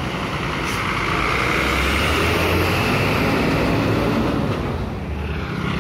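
Diesel engine of a large intercity coach running as it pulls away and passes close by, growing louder through the middle and easing off near the end.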